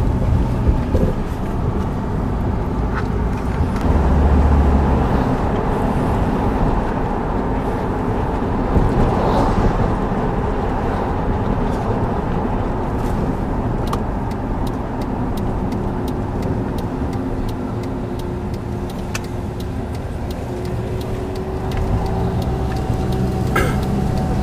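Engine hum and road noise heard from inside a moving car, steady throughout.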